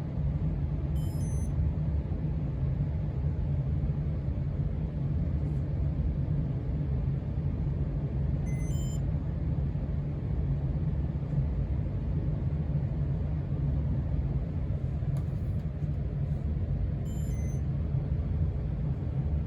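1993 Casablanca Stealth ceiling fan running steadily with a low, even hum and rush of air. Three faint, short electronic chirps sound about eight seconds apart.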